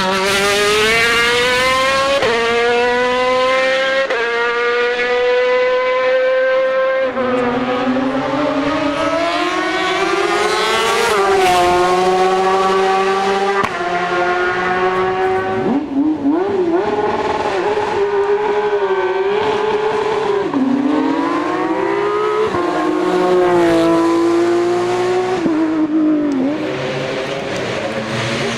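Hill-climb race car engine pulling hard through the gears, its pitch climbing then dropping at each gear change. Around the middle the revs swing up and down quickly, as on downshifts into corners.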